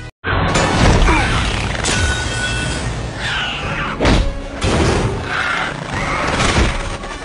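Action-film soundtrack: a dramatic score under loud booms, thuds and crashing hits, with sharp impacts about two and four seconds in and swirling whooshes between them.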